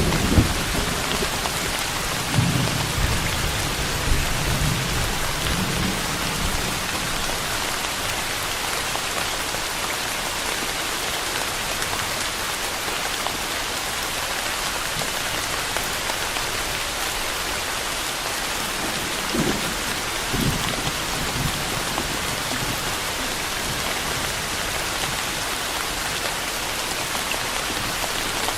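Steady heavy rain, an even hiss of drops falling on a surface, with low rumbles of distant thunder in the first few seconds and again briefly around two-thirds of the way through.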